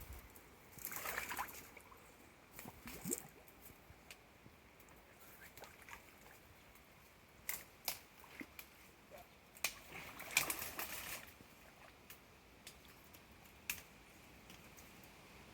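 Intermittent water sloshing and splashing, in two longer bursts about a second in and again around ten seconds, with scattered sharp clicks and knocks in between, from work on a pump's suction hose in the water.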